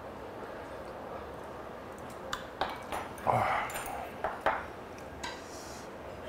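Metal spoon and chopsticks clinking against a small stainless-steel soup bowl: a handful of sharp clinks in the second half, with a short, louder slurp of kimchi soup a little after three seconds in.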